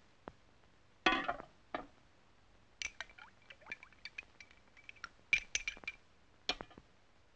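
Hot milk poured from a steel saucepan into a ceramic mug, a short splash about a second in. Then a spoon stirs in the mug, clinking against its side many times with a light ring.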